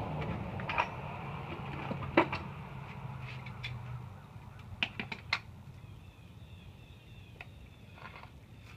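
Scattered clicks and knocks of hands working PVC pipe parts and a can of PVC cement, the loudest about two seconds in and a quick cluster around five seconds in. A low hum fades out about four seconds in.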